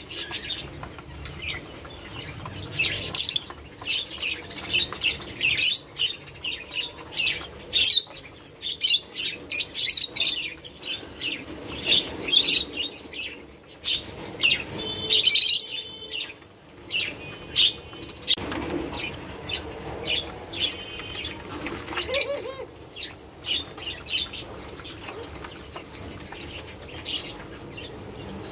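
Caged ringneck doves pecking grain from plastic seed dishes: a steady run of irregular clicks and rattles of seed, with an occasional short bird chirp.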